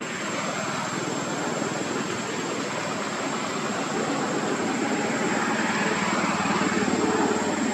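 Steady drone of a running engine, with a fine, even low pulsing and a thin high whine above it.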